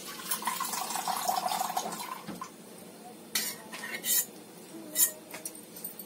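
Steel spoon clinking against steel kitchen utensils, four or five sharp clinks in the second half, after a soft steady noise in the first two seconds.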